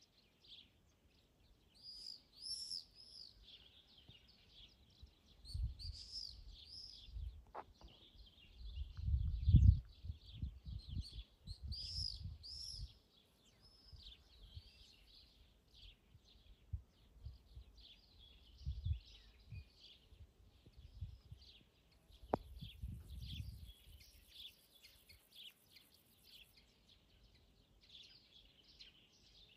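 Small birds chirping and singing on and off, in quick high twittering phrases. Bursts of low rumble come and go, loudest about a third of the way in.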